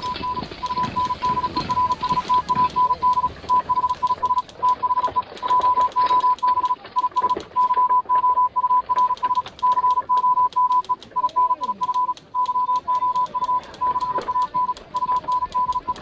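Morse code: a steady beeping tone keyed on and off in short and long beeps, with rapid clicking alongside. It is the coded telegraph call for the job applicants to come through for their interview.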